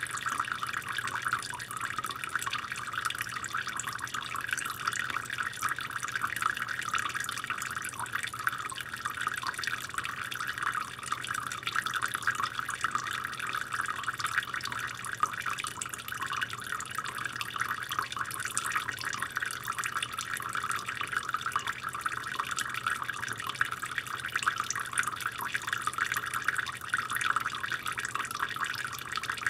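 Water tap left running to keep the pipes from freezing, its stream splashing steadily into the water below.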